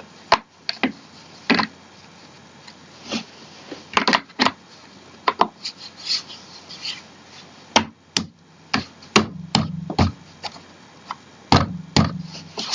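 Gaming office chair parts being handled and fitted by hand during assembly: scattered sharp clicks and knocks, with a short stretch of rubbing as a piece slides into place near the end.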